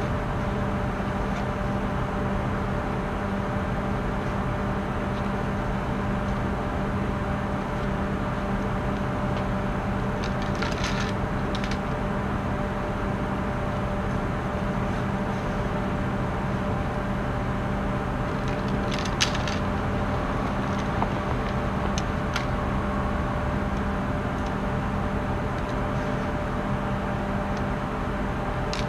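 A steady mechanical hum throughout, with a few light clicks and knocks as the folding canoe's frame tubes and bag are handled, about eleven seconds in, again near nineteen seconds and once more near twenty-two.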